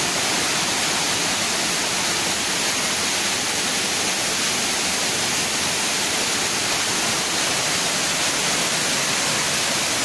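Steady rush of a tiered waterfall, water cascading over many stepped limestone terraces.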